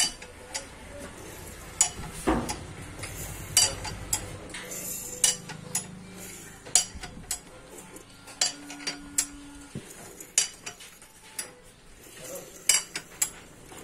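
Irregular sharp metallic clicks and clinks of tools against the Mahindra Scorpio mHawk engine's bottom end as the crankshaft is turned over by hand to check the timing, with a brief steady hum a little past halfway.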